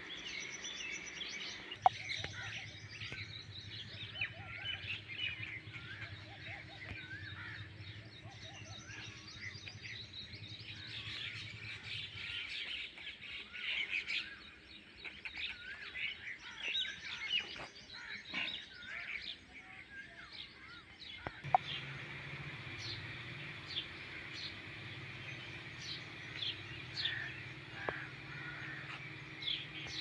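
Many birds chirping and calling together in a morning chorus, with crows cawing among them, over a low steady hum. Two sharp clicks stand out, about two seconds in and again about twenty-one seconds in.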